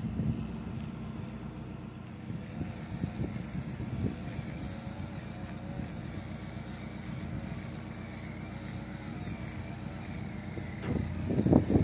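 Narrowboat engine running steadily at cruising speed, a low even hum, with a louder rumble near the end.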